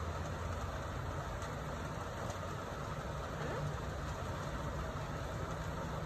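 Steady low mechanical hum over a constant hiss, with no distinct calls standing out.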